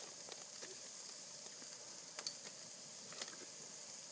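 Campfire crackling softly over a steady high hiss, with a few sharp pops, the clearest about two and three seconds in.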